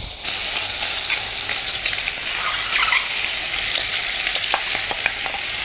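Masala-coated boiled eggs sizzling steadily as they fry in hot oil in a kadhai, with a few light clicks.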